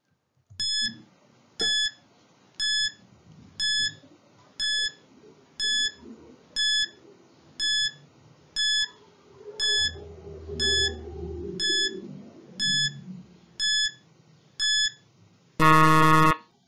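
Countdown timer ticking off fifteen seconds with a short electronic beep each second. It ends in a longer, louder buzzer as the count reaches zero, signalling that time is up.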